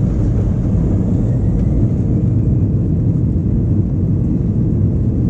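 Steady low rumble of an Airbus A320 heard from inside the cabin, engines and airframe running on the ground at the runway.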